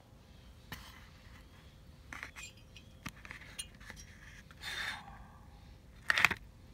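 Scattered light clicks, clinks and scrapes of a Honda Gyro X scooter cylinder being handled and lifted. The loudest scrape comes about six seconds in.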